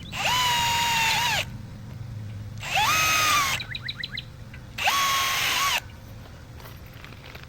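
Power drill driving screws into metal brackets in three short runs of about a second each, the motor speeding up at the start of each run and winding down at the end.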